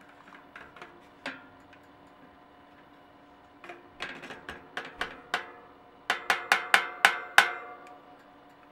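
Bicycle cassette lockring being tightened onto a rear hub with a lockring tool and long wrench: a few scattered metallic clicks, then two runs of sharp clicks at about five a second, the second run the loudest, as the lockring's serrations ride over the cassette.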